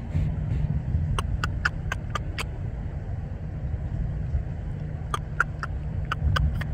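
Vehicle engine idling with a steady low rumble. Two quick runs of sharp clicks cut in over it, about a second in and again near the end.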